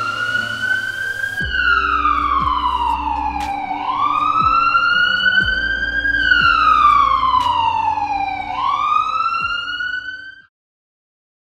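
A wailing siren rising and falling in slow sweeps of about two and a half seconds each, over a low droning hum. It cuts off suddenly near the end.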